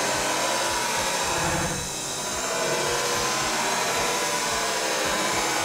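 Gas torch flame hissing steadily.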